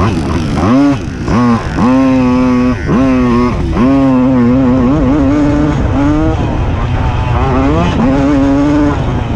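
Tomos automatic moped's two-stroke single-cylinder engine racing, heard from the rider's helmet: the revs climb sharply and drop off as the throttle is shut and reopened about four times in the first four seconds, then hold high with smaller dips.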